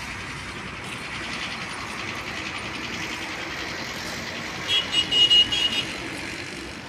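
Steady outdoor background noise, then a run of several short, loud, high-pitched beeps a little under five seconds in, lasting about a second.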